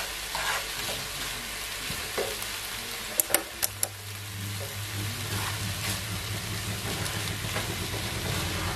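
Diced carrot, peas, onion and egg sizzling in a nonstick frying pan as they are stir-fried with a wooden spatula and a plastic utensil. A few sharp clicks of the utensils against the pan come a little over three seconds in.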